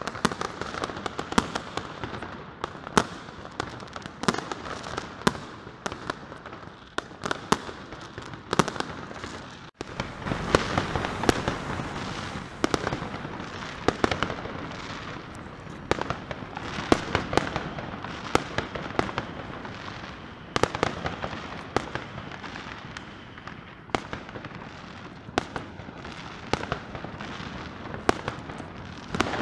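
Many fireworks and firecrackers going off across a city: sharp bangs come every second or so over a constant background of more distant bangs. There is a brief drop-out about ten seconds in.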